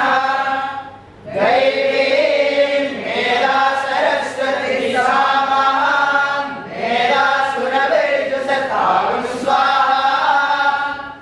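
A large group of boys chanting in unison from their texts, in long sustained phrases with a brief pause for breath about a second in.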